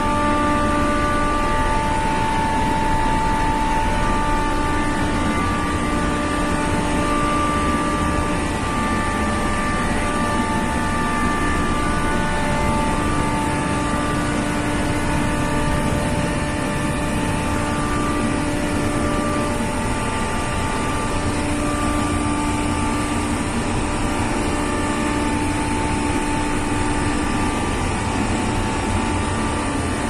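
Steady, loud din of running machinery in a ship's pump room, pumps and a compressor, with a few steady hum tones that fade in and out every few seconds.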